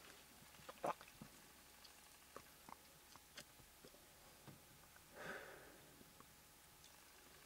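Near silence, with a few faint soft clicks, the sharpest about a second in, and one short breathy hiss about five seconds in.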